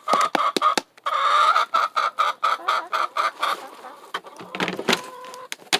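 Chickens clucking as they crowd round their feed, with many short sharp clicks mixed in over the first few seconds.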